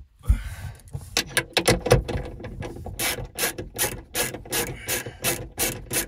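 Rapid, uneven ratchet-like clicking with some scraping as a screwdriver works at the jammed boot lock latch of a VW Passat B8 estate. The clicks come quicker and more evenly, about three to four a second, from about halfway through.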